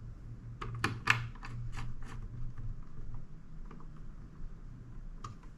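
Small clicks and taps of computer parts being handled and fitted by hand, bunched in the first two seconds and sparser after, over a low steady hum.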